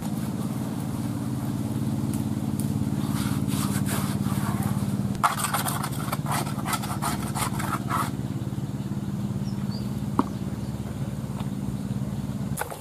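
A steady low engine hum that stops near the end, with bursts of gritty scraping in the middle from hands working crumbly manioc and flour dough in a plastic bowl.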